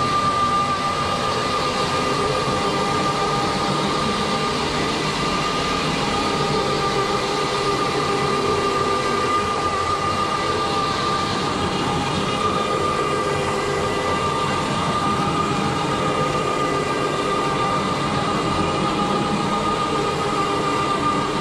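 Rotary hot-water extraction carpet cleaner running on carpet: its spinning head and the hose suction make a steady drone with a constant high whine.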